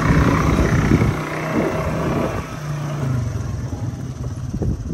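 Quad bike engine running with a rough rumble for the first second or so, then settling to a steadier low note and growing quieter toward the end as the bike slows down.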